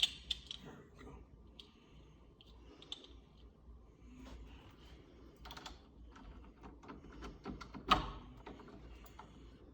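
Scattered small clicks and light knocks of door knob hardware being handled, metal parts tapping together as the two halves of the knob are worked into line with the screw holes. One sharper knock comes about eight seconds in.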